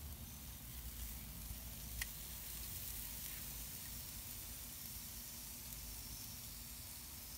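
Oil-rubbed whole chicken sizzling faintly on a hot grill grate: a steady high hiss, with a single sharp click about two seconds in.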